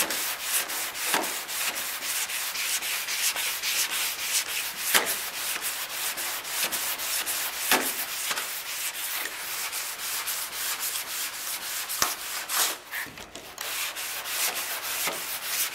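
Body filler on a steel panel being hand-sanded with a sanding block, with steady back-and-forth rasping strokes, about four a second. The strokes falter briefly about two-thirds of the way through. The filler is being block-sanded to show its high and low spots.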